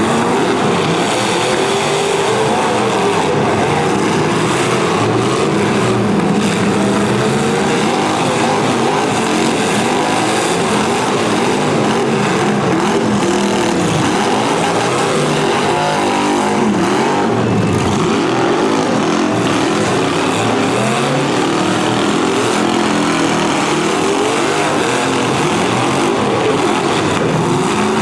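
Several demolition derby cars' V8 engines running at once, each revving up and down over the others in a loud, continuous mix.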